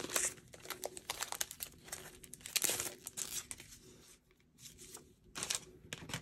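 Clear plastic packaging of a new embossing folder crinkling and rustling as it is opened, in a run of short crackles that eases off for a moment about four seconds in, then crackles briefly again.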